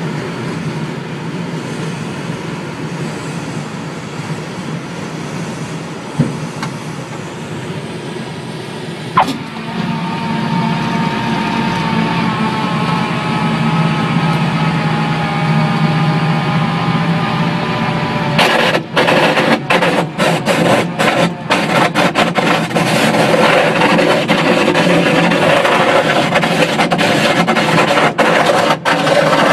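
Small aircraft touching down and rolling out on a runway. Steady airflow noise, then a sharp knock about nine seconds in at touchdown, after which a humming tone slowly falls in pitch as the aircraft slows. In the last ten seconds a louder, rough rumble with brief dropouts takes over.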